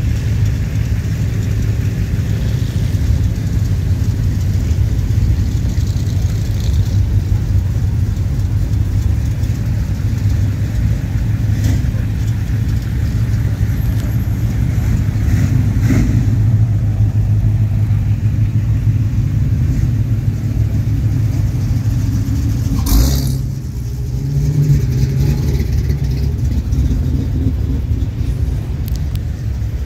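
Car engines running, a steady low rumble with a sharp click about three-quarters of the way through.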